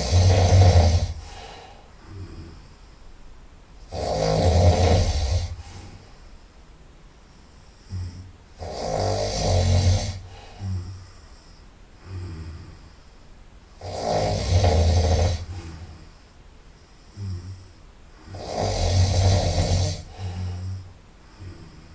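A person snoring loudly through the nose: five long snores, one roughly every five seconds, with softer breaths in between.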